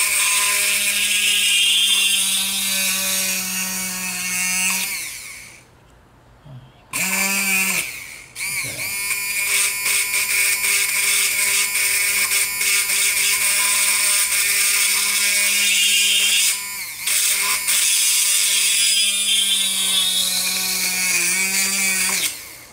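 Handheld corded mini electric drill running with a steady whine as it bores small holes through a wooden spatula. It winds down and stops about five seconds in, starts again about two seconds later, cuts out briefly once more, then runs on.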